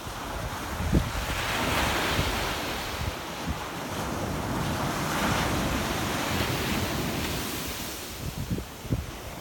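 Sea waves breaking against rocks and washing in, swelling twice, about two and five seconds in, with low buffeting thumps of wind on the microphone.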